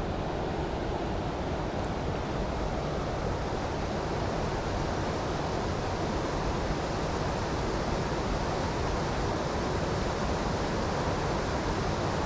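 Water rushing steadily over a river weir, a constant even roar.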